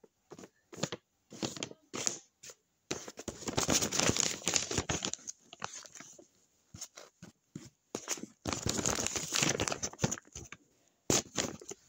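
Paper rustling and crinkling as a hand-made paper blind bag is handled and its sheets unfolded: several short rustles, then two longer stretches of crinkling, and a few more short rustles near the end.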